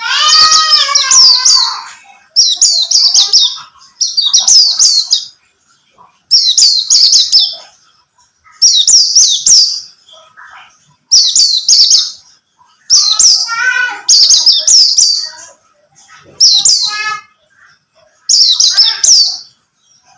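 Pleci (white-eye, buxtoni type) song: about nine short, high, fast twittering phrases, one every two seconds or so. Lower warbled notes run under the first phrase and two later ones.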